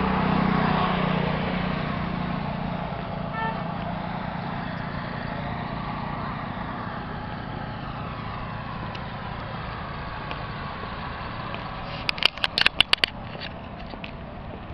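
A road vehicle passes, its engine and tyre noise loudest at the start and fading over the first few seconds into a steady traffic hum. Near the end comes a quick run of about eight sharp clicks.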